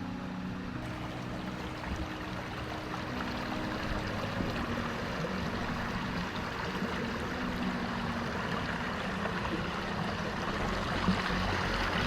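Rushing water of a river and waterfall, a steady hiss that slowly grows louder. Soft background music with held tones fades out in the first four seconds or so.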